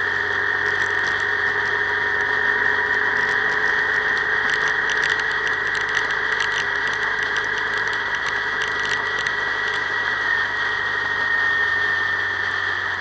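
Steady wind and road noise from a vehicle cruising at constant speed, picked up by a vehicle-mounted camera, with a steady high-pitched whine that drops slightly in pitch about ten seconds in.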